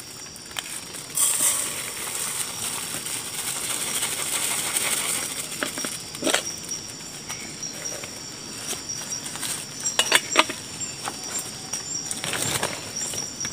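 Uncooked rice poured from a plastic bag into a metal cooking pot: a hissing patter of grains starting about a second in and easing off after several seconds, followed by a few sharp knocks and rustles of handling. A steady high chorus of insects runs underneath.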